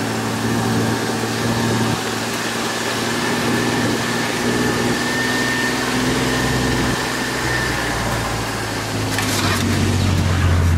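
Kawasaki Mule Pro-FXT utility vehicle's three-cylinder engine running steadily while driving, heard from inside the cab, growing louder near the end.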